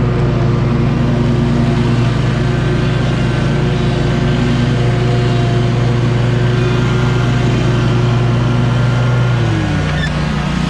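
2019 Scag V-Ride II stand-on commercial mower running steadily while mowing; near the end its engine speed drops and the pitch slides down and settles lower.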